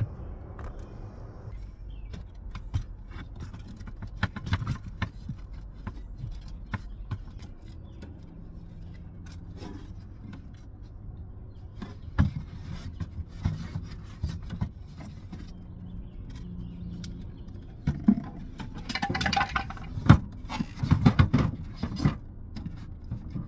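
Wooden storage crates being handled and set in place, with scattered wooden knocks, clicks and scrapes. A louder cluster of thuds and scraping comes near the end as the crate is pushed into position.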